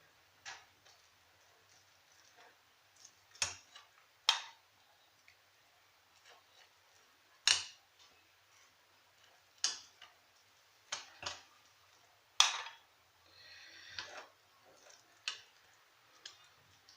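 Scattered sharp clicks and taps of a kitchen utensil against a jar and the cake's dish while jam is spread on the cake, with a short scraping sound about thirteen seconds in.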